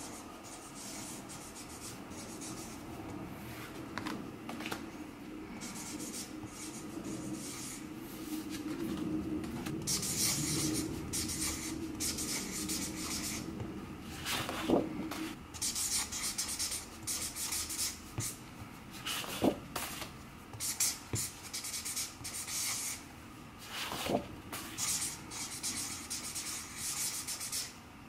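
Thick Sharpie marker rubbing and scratching across card stock in many short strokes as names are hand-lettered, with a few light knocks partway through.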